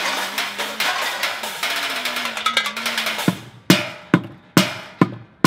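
Drumsticks playing a street drum kit of recycled plastic buckets, pots and metal pans: a dense, fast flurry of hits for about three seconds, then single hits about two a second, each ringing briefly.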